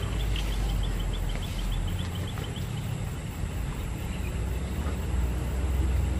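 Low, steady rumble of a motor vehicle running somewhere near, swelling slightly near the end. Over it, in the first two or three seconds, comes a quick run of faint, evenly spaced ticks.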